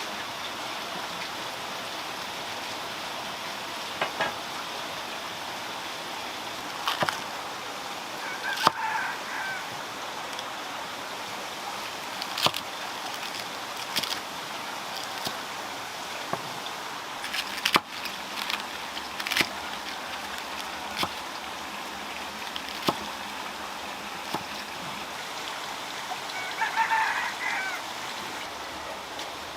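Steady rushing hiss like running water or rain, with scattered sharp knocks and, twice, a short bird call, most likely from farm fowl.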